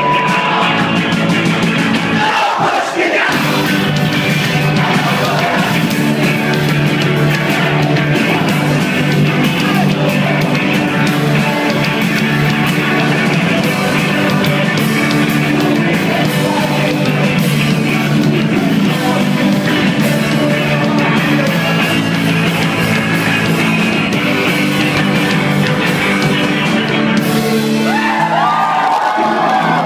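Folk punk band playing loud live rock with electric guitar, bass guitar and shouted singing, heard close up from the front of the crowd. Near the end the low instruments drop out and voices yell.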